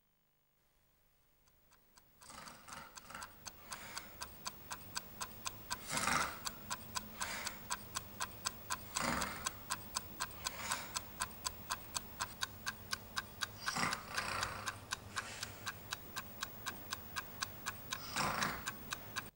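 Clock ticking steadily, about two to three ticks a second, starting after about two seconds of silence, with a few longer rushing swells of noise every few seconds.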